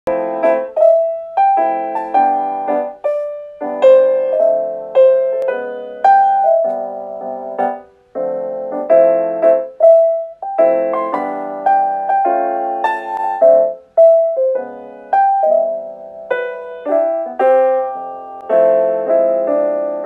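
Background piano music: a gentle melody of single struck notes over soft chords, each note ringing and fading away.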